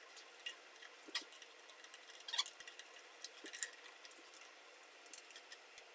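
Faint, irregular small clicks and taps of screws and hardware being handled and started into the pre-drilled holes of the flat-pack stand's panels, with a few sharper clicks among them.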